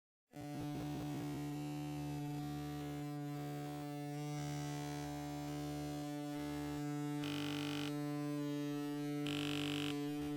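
Light fixture giving off a steady electrical hum of several stacked tones. It starts abruptly about a third of a second in, with short bursts of hiss added twice near the end.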